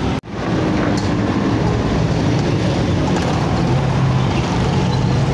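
Potato fries sizzling in a deep fryer's hot oil: a steady hiss over a constant low hum, broken by a very brief dropout just after the start.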